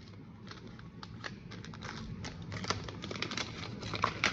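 Paper and tape crinkling and tearing as a homemade paper packet is unwrapped by hand: irregular rustles and crackles that grow busier toward the end.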